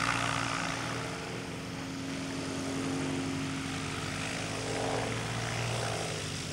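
Piper PA-28 light aircraft's piston engine and propeller running at low power as it taxis back along the runway, a steady drone.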